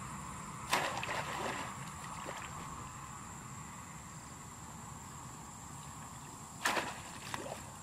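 Two splashes about six seconds apart as a bamboo plunge basket is jabbed down into shallow paddy water, each trailing off in a short slosh of water.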